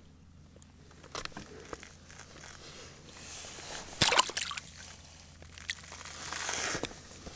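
Water sloshing and splashing in an ice-fishing hole as a yellow perch is hauled up out of it. The loudest sharp splash comes about four seconds in, with smaller splashes and sloshing before and after it.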